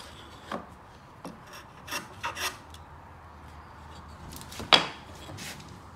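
Wood scraping and rubbing against wood in short, separate strokes as a small bevelled offcut is worked on the bench. One stroke about three-quarters of the way through is much louder and sharper than the rest.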